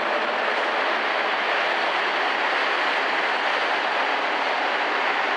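Polish EP07 electric locomotive and its passenger coaches rolling past close by along the platform: a steady, even rolling noise of wheels and running gear.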